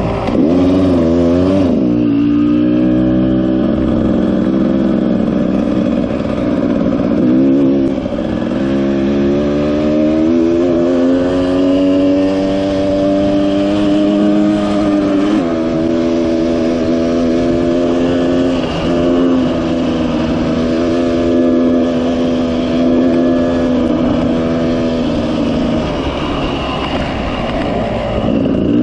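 Dirt bike engine running under way on a sandy track, its pitch climbing and then stepping down a few times as it changes gear, over a steady rush of wind noise.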